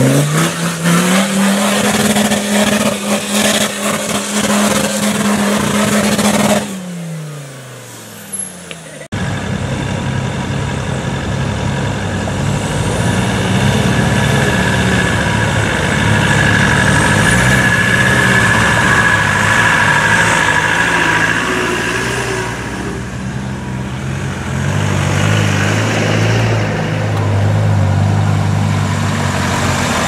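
Land Rover 4x4 engine revving up hard and holding high revs off-road, then falling away. After a cut, another Land Rover's engine pulls at lower revs over rough ground, its pitch rising and falling with the throttle.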